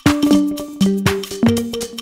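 Upbeat electronic game music with a steady knocking beat and a short synth melody, playing from a plug-in dance-mat video game.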